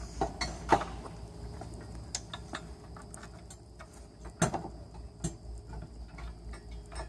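Scattered light clicks and knocks of metal spacers being handled and slid onto a steel U-bolt, with louder knocks just under a second in and again about halfway through.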